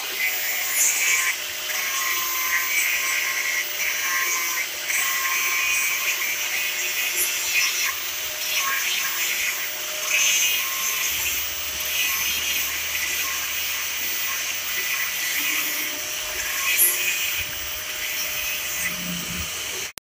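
Electric angle grinder with a yellow abrasive disc, running with a steady high-pitched whine as it grinds a metal motorcycle grab handle. The rasp swells and eases as the disc is pressed on and lifted.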